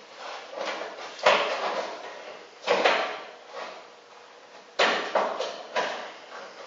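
Metal clunks and scrapes as the VW Beetle's door locking mechanism is worked up inside the door shell and through its opening. Three louder knocks come about a second, two and a half seconds, and nearly five seconds in, with lighter rattles between.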